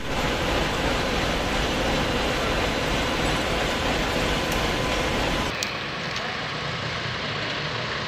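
Busy street noise of vehicle engines and a crowd, a dense steady din. About five and a half seconds in it drops abruptly to a quieter, thinner din with less low rumble.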